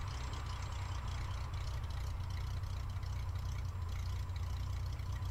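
Cessna 172's engine and propeller running at low power during the landing rollout, a steady low drone.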